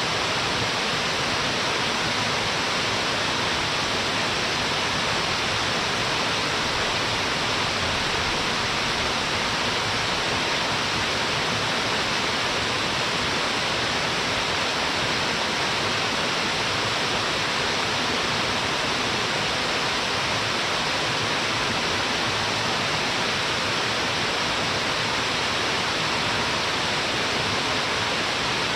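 Waterfall plunging into a wide plunge pool: a steady, unbroken rush of falling water, full and hissy, with no change throughout.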